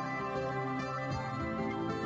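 Soft background music with plucked guitar.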